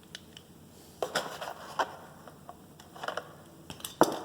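Door lock hardware being handled and set down: a scattered series of light clicks and knocks of metal parts, with one sharper knock near the end.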